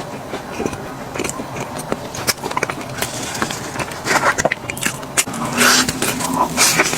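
Eating sounds: crunchy bites and chewing of crispy fried KFC food, in irregular crackling bursts.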